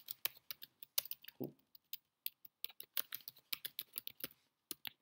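Typing on a computer keyboard: quick, irregular key clicks as a line of text is typed, with a short pause near the end before a few more keystrokes.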